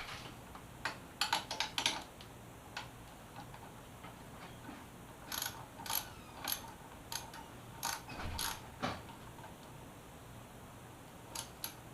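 Socket ratchet wrench clicking in short bursts as the mirror mounting bolts are snugged down, with pauses between runs of clicks.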